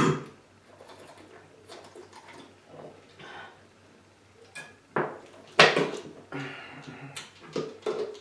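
People chugging Sprite from plastic soda bottles: gulping and swallowing, with small knocks and crinkles from the bottles. Two louder sudden sounds come about five seconds in, followed by smaller ones as one drinker comes off the bottle.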